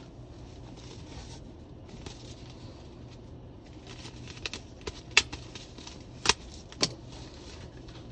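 A paper greeting card being handled: faint rustling of the card stock over a steady low hum, with four sharp clicks or taps from about four and a half seconds in.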